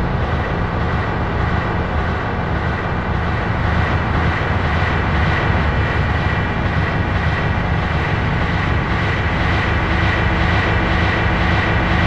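Synthesized sci-fi space ambience: a steady, dense low rumble like a spacecraft drone, with a held high tone and a faint regular pulsing above it.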